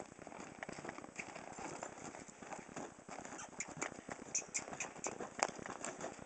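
Hoofbeats of a pony trotting on packed snow and ice: an uneven run of sharp clicks, loudest about four to five seconds in.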